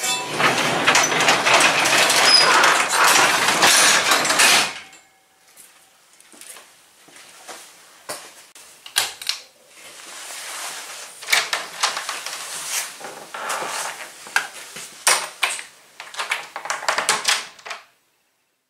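A garage door being pulled down by hand, rolling and rattling loudly for about four and a half seconds. Scattered knocks and rattles follow.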